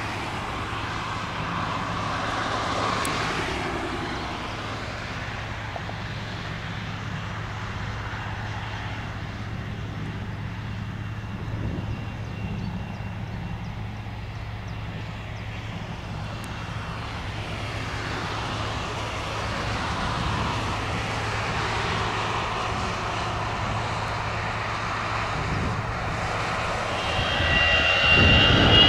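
Bombardier CRJ-900 regional jet's two rear-mounted GE CF34 turbofans running at taxi power: a steady rumble and hum with a faint high whine, swelling near the end.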